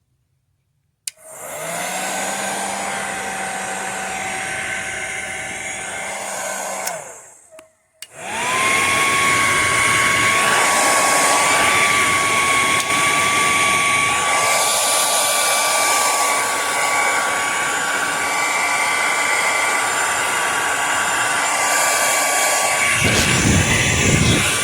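Revlon infrared ionic hair dryer running with a steady whine. About seven seconds in, it winds down and stops, then starts again a moment later with a louder, higher whine. This fits the intermittent fault in this unit, which keeps cutting out and failing to turn on.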